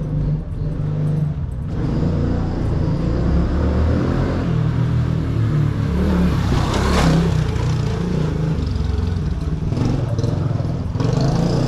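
Small motorbike engine running and revving, loudest about seven seconds in.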